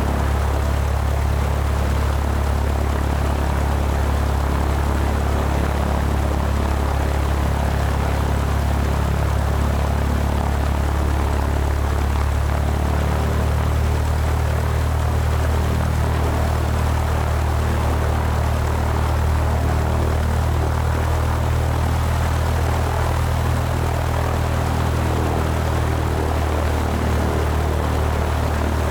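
Airplane engine drone, a steady low hum with a noisy rush above it that holds an even level without rising or fading.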